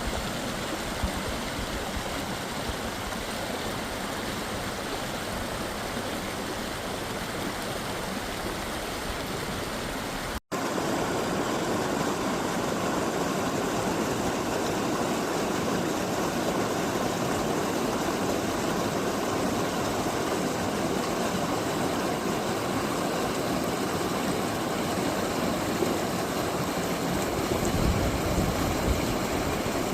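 Forest stream running steadily, an even rushing of water. About ten seconds in the sound cuts out for an instant and comes back a little louder.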